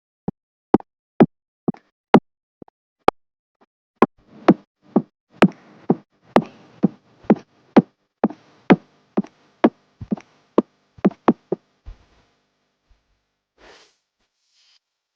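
A steady series of sharp knocks, about two a second, each with a short ring, stopping about twelve seconds in.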